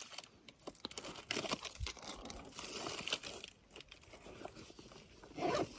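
Quiet close rustling and crinkling handling noise, with scattered small clicks and crunches.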